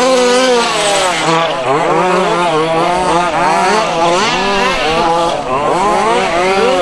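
Several 1:5-scale RC buggies' small two-stroke petrol engines revving up and down as they race, their rising and falling pitches overlapping.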